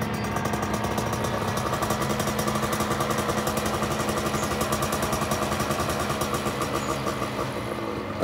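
Polini 80cc single-cylinder two-stroke paramotor engine idling steadily with a rapid, even pulsing, with a brief louder surge near the end. It is running only on its prime: the pilots trace the fault to the rebuilt Walbro WG8 carburettor not pumping fuel through, so it dies once the prime is used up and does not respond to the throttle.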